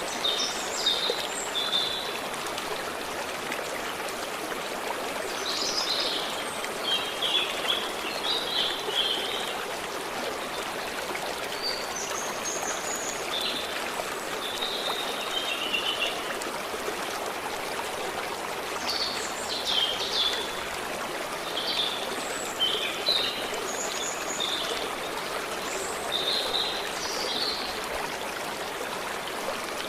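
A stream running steadily, with small birds chirping and singing in short phrases over it again and again.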